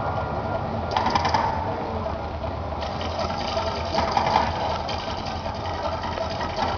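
Mirage Volcano show in Las Vegas: a steady rumbling, rattling noise that swells briefly about a second in and again about four seconds in.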